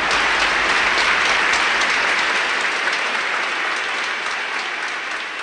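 Audience applauding after the end of a speech, the clapping slowly fading toward the end.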